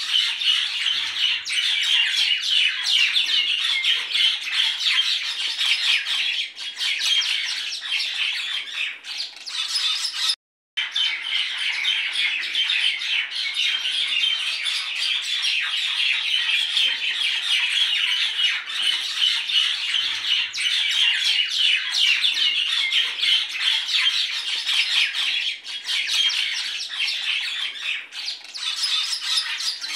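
A flock of birds chattering and squawking continuously in a dense, overlapping mass of calls; it cuts out for a moment about ten seconds in.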